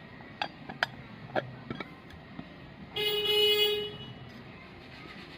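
A few light metal clinks of parts being handled, then a single steady horn toot lasting about a second, the loudest sound here.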